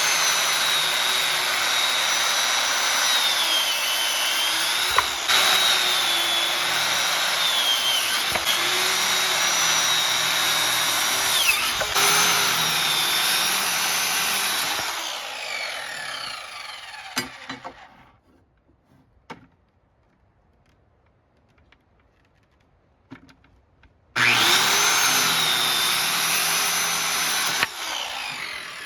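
Hand-held circular saw cutting wooden boards, its loud whine dropping in pitch three times before it winds down about halfway. After a few seconds of near silence it starts again for a short second cut and winds down near the end.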